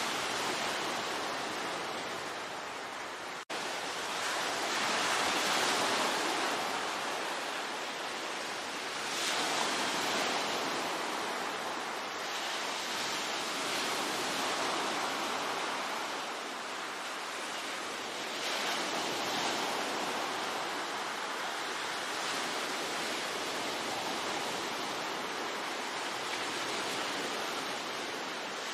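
Ocean waves washing onto the shore in a steady hiss that swells as each wave breaks, every few seconds. A momentary dropout cuts the sound about three and a half seconds in.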